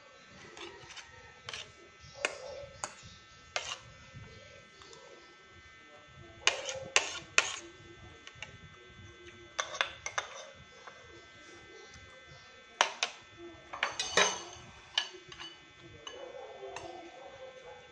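Metal spoon and fork clinking and scraping against a plate while eating: scattered sharp clicks, some in quick pairs and threes, with quieter stretches between.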